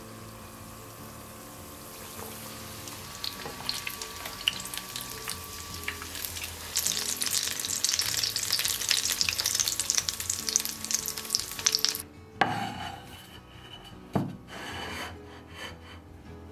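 Breaded chicken drumsticks deep-frying in hot sunflower oil: sizzling and crackling that builds up and is loudest in the middle, then cuts off suddenly about twelve seconds in. A couple of short knocks follow.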